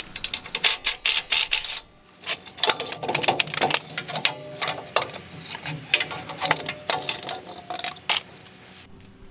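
Hand ratchet clicking in quick runs, with metal clinks, as the front shock absorber's mounting bolts are loosened and removed.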